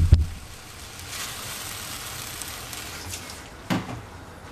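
Stir-fried noodles sizzling in a hot pan with a steady hiss. There are a couple of heavy knocks right at the start and another clatter about three and a half seconds in.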